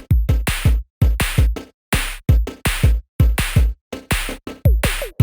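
Electronic drum-machine beat: a steady, punchy kick-and-snare rhythm of about three to four hits a second.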